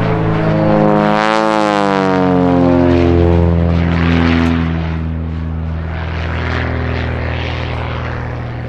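Aviat Pitts Special S-2B aerobatic biplane's six-cylinder Lycoming engine and propeller running at display power, the pitch swinging up and then sliding down as the plane manoeuvres. It steadies and grows a little quieter in the second half.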